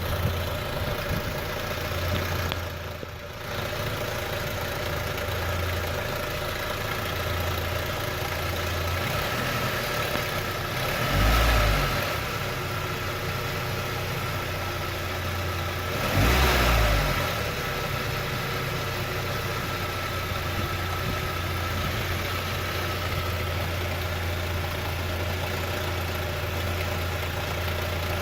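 ZMZ-406 16-valve inline-four petrol engine idling hot, with a knock that appears only once it has warmed to about 80 °C and is absent on a cold start. It is blipped briefly twice, about 11 and 16 seconds in.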